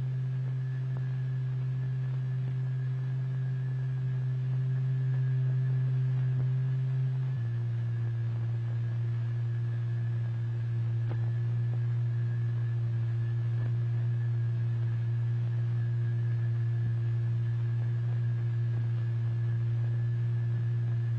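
Steady low sine tone, the driving tone of a cymatics experiment that sets the fluid vibrating, with a few faint overtones. Its pitch steps down slightly about seven seconds in, and a faint high whistle runs on above it.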